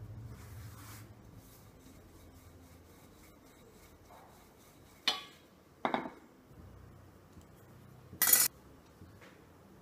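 Wooden rolling pin rolling chapati dough on a floured counter, a faint rubbing, with a sharp knock about five seconds in, another just before six, and a loud, short noisy burst a little after eight seconds.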